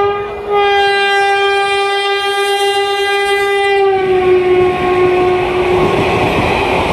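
Indian Railways locomotive horn: one long, steady blast that drops slightly in pitch about four seconds in and fades out near six seconds. The rumble and clatter of a train rolling on the rails rises under it from about four seconds in.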